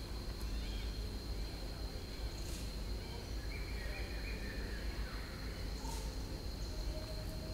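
Forest ambience: a steady, high-pitched insect drone over a low rumble, with a few faint short chirps about three to four seconds in.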